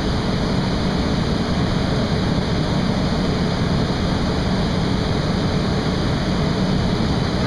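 Steady roar of a glassworks' glory hole, the reheating furnace that keeps molten crystal hot, with a low steady hum under it.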